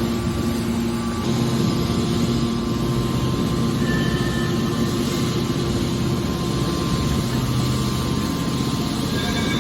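Steady rumble of a running vehicle or large machine, with a few steady hum tones over it.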